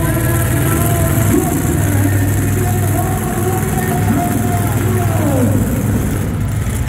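Monster truck engine running steadily at low revs, with a voice over it that rises and falls in pitch.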